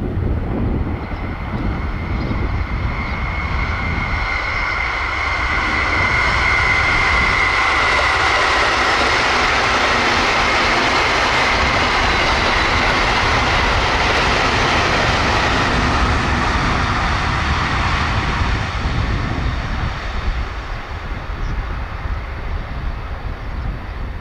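A train passing at high speed: a rushing noise that builds over a few seconds, holds loud for about ten seconds with a thin high whine in its first half, then fades away.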